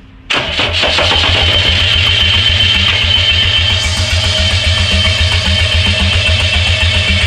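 JCB diesel engine starting up abruptly and then running steadily, with a fast, even beat.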